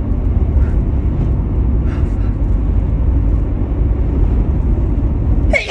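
A single sudden, loud sneeze bursts out near the end: the sneeze that had been building from a tickling nose during a cold and allergies. Under it is a steady low rumble.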